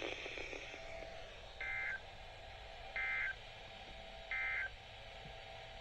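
Emergency Alert System SAME end-of-message code from a NOAA Weather Radio transmitter: three short, identical bursts of two-tone digital data warble, about a second and a half apart, sent to close the weekly test. A steady radio hiss runs underneath.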